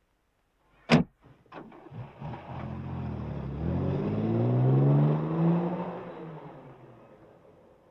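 A door slams shut with a sharp bang, then a lighter knock. A vintage saloon car's engine then pulls away, rising in pitch as it accelerates, and fades into the distance.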